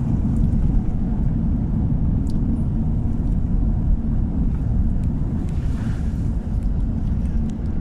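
Steady low rumble of a car driving along: engine and tyre noise from the moving car.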